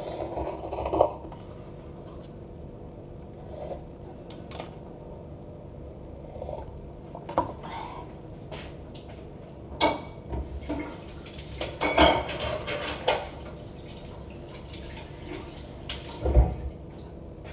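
Dishes and cutlery clinking and knocking now and then as someone handles them at a kitchen counter, busiest about two-thirds of the way through, with one last loud knock near the end.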